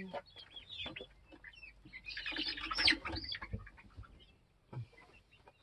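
Chickens chirping and clucking as they settle into the coop to roost: a run of short falling chirps, busiest about two to three seconds in, then dying down near the end.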